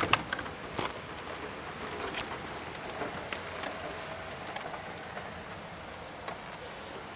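Rain falling as a steady hiss, with a few scattered sharp taps of drops or drips hitting nearby surfaces.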